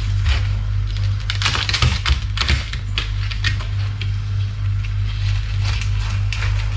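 Large kitchen knife slicing through the crisp, crunchy skin of deep-fried pork belly (lechon kawali) on a wooden board: a fast, irregular run of sharp crackling crunches, over a steady low hum.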